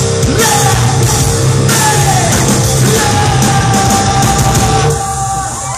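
A live hard rock band playing loudly: electric guitars, bass and drums with cymbal crashes, under a singer holding long notes. About five seconds in the band drops away to a last held sound as the song ends.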